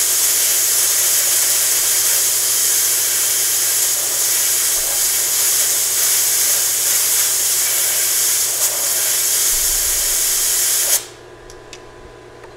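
Compressed-air blow gun hissing steadily while blowing on a fresh weld to cool it; the air cuts off suddenly about eleven seconds in.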